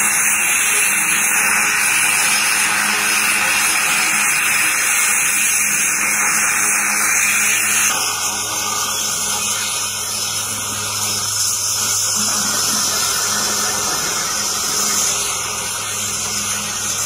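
Indian Navy HAL Dhruv helicopter running on the ground with its rotors turning: a loud steady turbine hiss over a low steady hum. The hiss changes in tone about eight seconds in.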